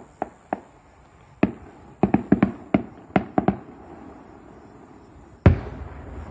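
Fireworks going off: about a dozen sharp bangs, some in quick clusters, over the first three and a half seconds, then one loud boom about five and a half seconds in that rolls on in a rumbling echo.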